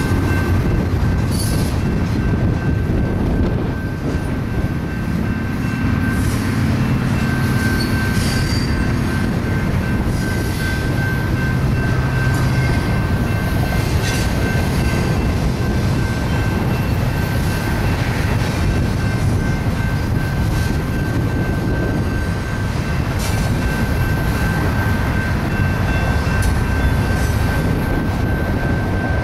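Double-stack container train rolling past: a heavy, steady rumble of wheels on rail, with a thin high wheel squeal held throughout and scattered clicks.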